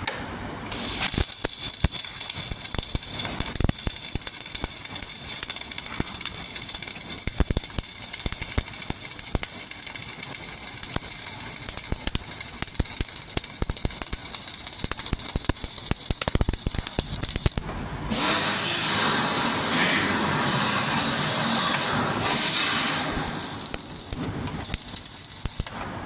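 Flux-cored arc welding on a steel I-beam: a steady, crackling arc hiss with spatter. About two thirds of the way through, the sound changes to a fuller, broader hiss.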